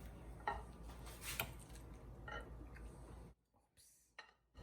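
A few faint taps and clinks of cutlery on a plate. About three seconds in they give way to a second of dead silence.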